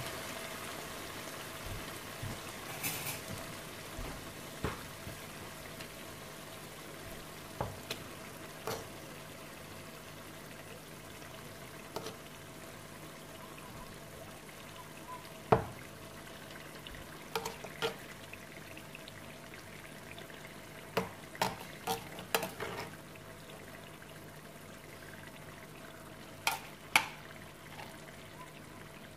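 Chicken masala sizzling gently in a metal pan, with scattered sharp taps and scrapes of a wooden spoon against the pan as canned spinach is spooned in; the loudest knock comes about halfway through.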